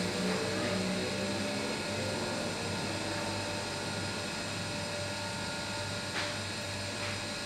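Steady mechanical hum and drone of room tone, with a faint short tap about six seconds in.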